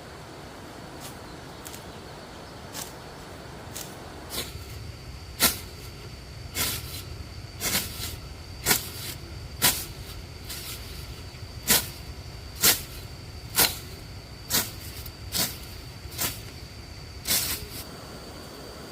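A series of sharp strikes, about one a second, beginning about four seconds in and stopping shortly before the end, over a steady high-pitched insect drone.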